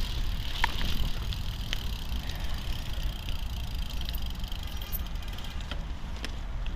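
Merida Silex gravel bike rolling along a wet trail: steady tyre noise over the gravel, with low wind rumble on the microphone and a few scattered clicks.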